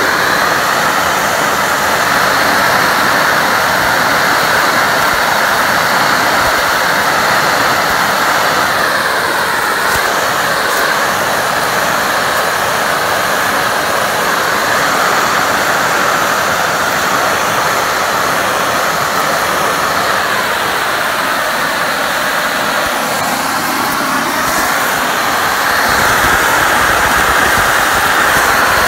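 Steam jetting out of the brass flare fitting on the end of a heated stainless-steel tube coil: the water inside the coil is boiling and being driven out as a loud, steady hiss.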